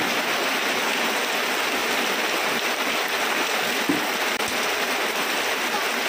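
Rain falling steadily, an even hiss with no break.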